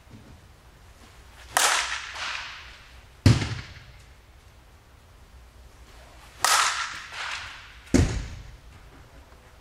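A softball bat strikes a pitched softball twice, about five seconds apart. Each hit is a sharp crack that rings on in a large indoor hall. A heavier low thud follows each hit about a second and a half later.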